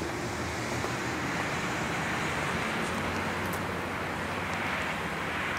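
Diesel locomotives of an approaching CSX freight train running in the distance: a low steady engine drone that grows a little stronger about halfway through, over a steady hiss.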